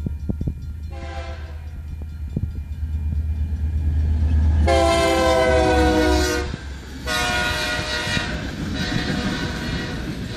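Union Pacific diesel freight locomotive passing close by and sounding its multi-note air horn three times: a short blast about a second in, then a long loud blast mid-way and another soon after. A low engine rumble runs underneath, and the freight cars' rolling wheels take over near the end.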